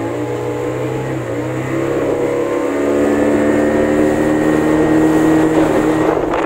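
Speedboat's outboard motor running under way, its pitch and loudness rising steadily through the second half as the boat accelerates.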